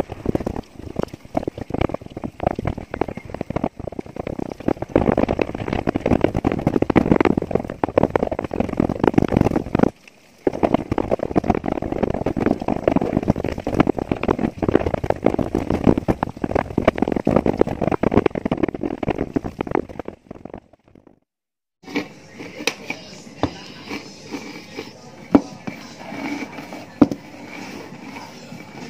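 Cooked rice being crumbled and rubbed by hand on a woven plastic sack: a dense, loud crackling rustle. After a sudden cut about two-thirds in, quieter rolling and crunching with a few sharp clicks as a bottle is rolled over dry yeast-starter cakes to crush them.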